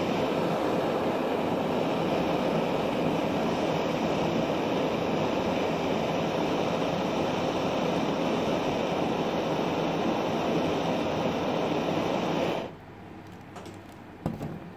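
Handheld gas blowtorch burning with a steady rush of flame as it melts candle wax, shut off abruptly near the end, followed by a single knock.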